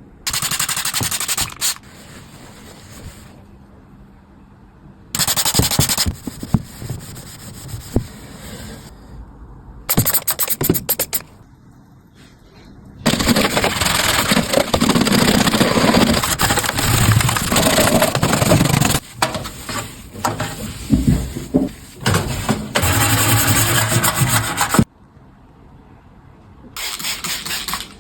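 Scrubbing and wiping a microwave oven, rubbing and scraping in several short bursts, then a long stretch of steady scrubbing that stops suddenly near the end.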